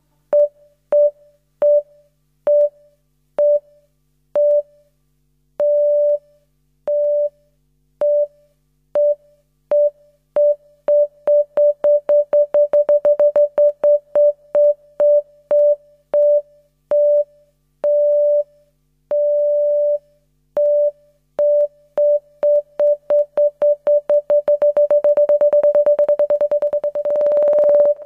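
Electronic background music: one synthesizer beep repeated at a single pitch, unevenly at first, then faster and faster until the beeps run together into one steady tone near the end, as in a trance build-up.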